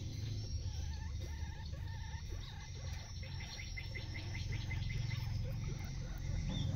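Guinea pig chewing fresh leafy greens: a quick run of small crisp crunches, clearest in the middle, over a steady low hum.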